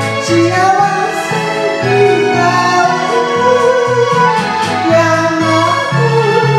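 Karaoke backing track of a Japanese popular song, with a bass note pulsing about twice a second, and a woman singing along.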